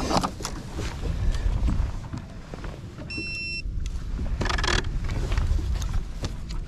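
Steady low rumble of wind on the microphone and water against a bass boat, with a short electronic beep a little after three seconds. At about four and a half seconds a baitcasting rod is cast, a brief swish as the line pays off the reel.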